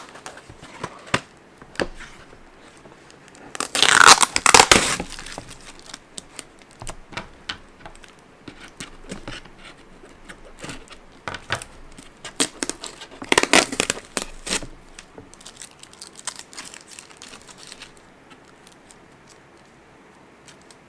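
Shipping packaging being torn open and crinkled by hand. Two louder tearing bursts come about four seconds in and again around thirteen seconds, with scattered crackles and rustling between.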